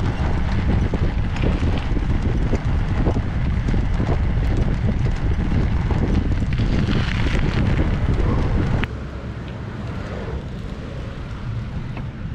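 Wind buffeting a bike-mounted camera, with steady road rumble and frequent rattling knocks from the bicycle and its loaded trailer rolling along the road. About nine seconds in, the sound cuts to a quieter, smoother ride noise.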